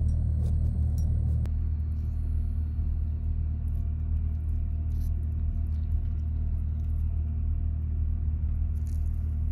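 Steady low rumble of a car engine idling, heard from inside the cabin; the hum steps down slightly about a second and a half in. A few faint light clicks sit over it.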